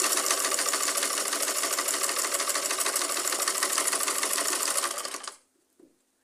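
Old black sewing machine stitching at a steady, fast pace as it hems the edge of a sheer voile curtain, then stopping suddenly about five seconds in.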